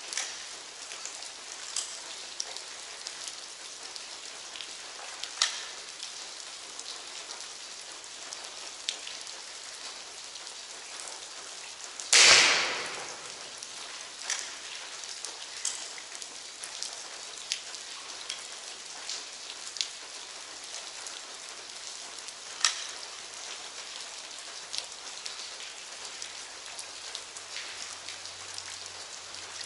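A single shot from a Crosman Quest 1000 break-barrel air rifle fitted with a gas spring, about twelve seconds in, ringing on briefly in a concrete shelter. Scattered small ticks sound between.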